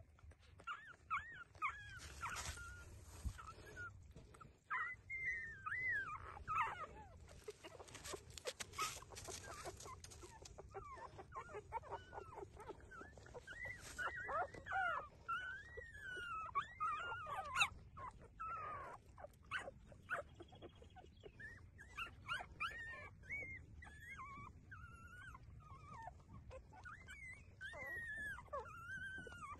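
Newborn puppies squeaking and whining while they nurse: many short, high-pitched arching cries, one after another, with scattered clicks between them.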